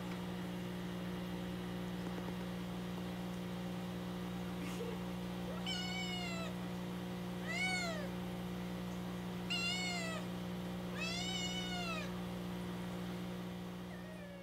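Young black kitten meowing four times, each meow rising and then falling in pitch, the last a little longer, over a steady low hum.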